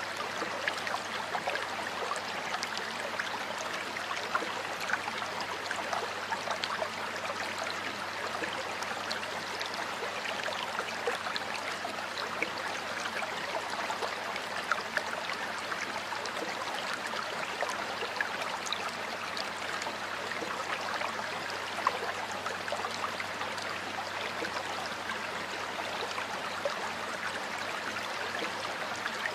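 Water of a flowing stream running steadily: an even, continuous rush flecked with many small splashes.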